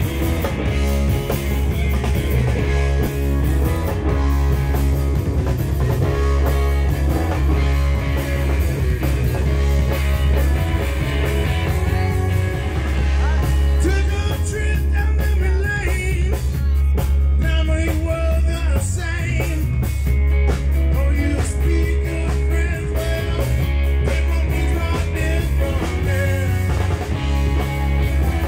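A blues-rock band playing live: electric guitar, electric bass and drum kit, with a heavy bass line. A high line bends in pitch about halfway through.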